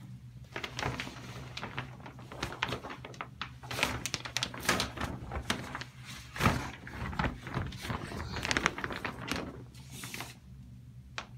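Clear plastic shower curtain rustling and crinkling in quick irregular crackles as it is pushed and swept about against the cat, stopping about ten seconds in.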